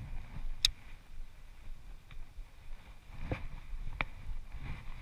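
A few short, light clicks and knocks over a faint low rumble: about two-thirds of a second in, then a little past three seconds and at four seconds.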